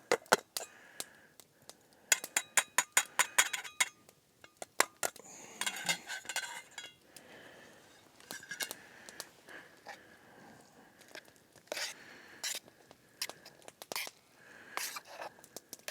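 A utensil scraping and clinking against a metal camp cooking pot as food is scooped out of it. There is a quick run of ringing clinks about two seconds in, then scattered scrapes and taps.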